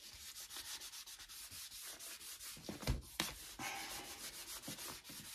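Cotton round rubbing ink onto the gilded page edges of a Bible in quick repeated strokes: a soft, fast scratching of fibre on paper. Two brief louder knocks come about three seconds in.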